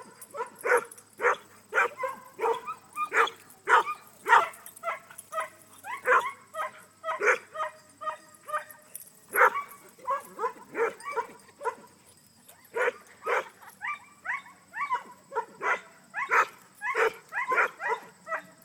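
English Setter barking over and over in short, quick barks, about two a second, with a couple of brief pauses.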